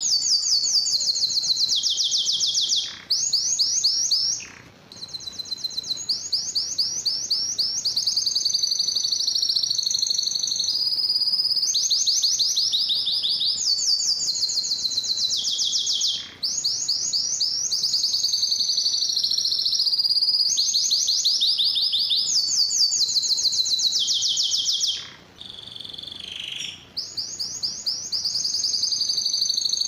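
Domestic canary singing a long, loud song of rapid trills, phrase after phrase changing pitch, with a few brief pauses.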